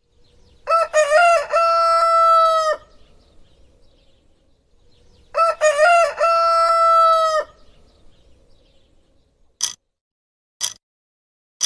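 Rooster crowing twice, each a cock-a-doodle-doo of about two seconds. Near the end come three short sharp ticks, about a second apart.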